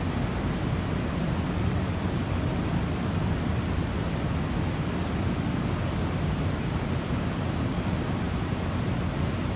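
Steady station platform ambience: an even rumble and hiss with no distinct events.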